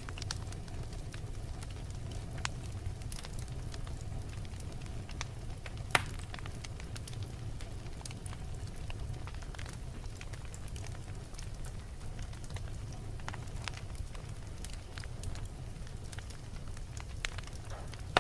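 Wood fire burning in a fireplace: a steady low rumble with scattered crackles and one loud pop about six seconds in.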